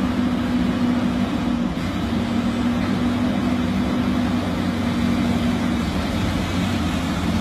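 Heavy excavator diesel engines running steadily, a constant low drone with a held hum over it.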